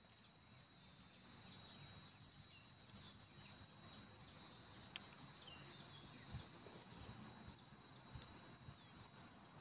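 Faint, steady, high-pitched drone of insects in a tropical setting, swelling and easing a few times, with a few short faint chirps over it.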